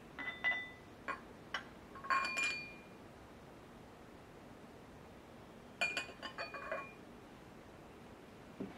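Glass tumblers and stemmed glasses clinking against each other as they are handled in a wooden drawer: a run of light clinks with brief ringing tones in the first couple of seconds, then a second cluster about six seconds in.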